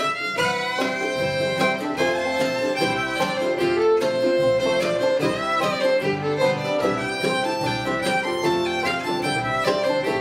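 Bluegrass band playing live: fiddle carrying the melody over acoustic guitar, banjo, mandolin and upright bass.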